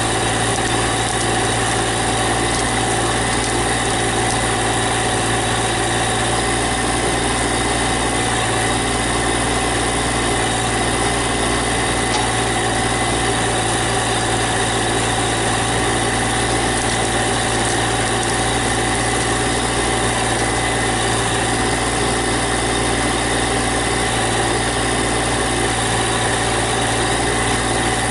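GC1710 subcompact tractor's engine running at an even, unchanging speed, with a steady thin whine above the engine note.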